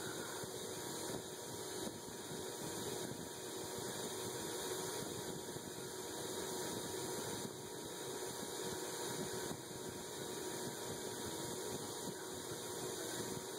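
KMG belt grinder running while the CPM 3V steel cleaver blade is ground against the moving abrasive belt: a steady grinding hiss over a faint motor hum.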